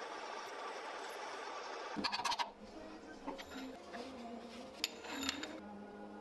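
Drill press running as the bit cuts through a small metal pin, a steady whirring for about two seconds. Then come metallic clinks and scrapes, with a steady hum underneath, as the swarf is brushed off and the vise is handled.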